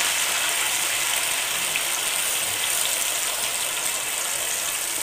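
Freshly added onion, garlic and green-chili paste sizzling in hot oil in a nonstick pan while a wooden spatula stirs it; a steady hiss that slowly eases.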